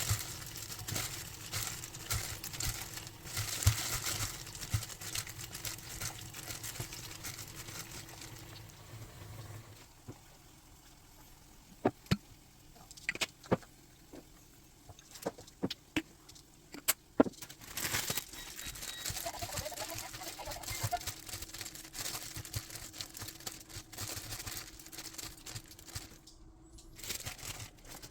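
Packaging rustling and crinkling as it is handled. In a quieter stretch in the middle come a handful of sharp clicks and knocks, and a faint steady hum runs underneath.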